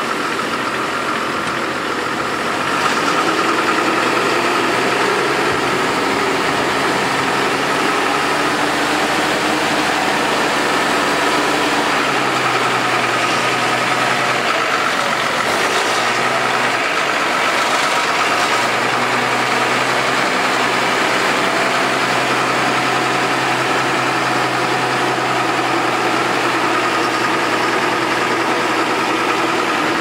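Case tractor's diesel engine running steadily under load while pulling a reversible plough through stubble. The engine note shifts and dips about halfway through as the tractor passes close by.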